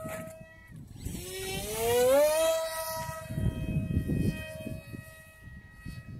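Radio-controlled A-4 Skyhawk model jet's motor whine rising in pitch as the throttle is opened, then holding at a steady high tone, over low wind rumble.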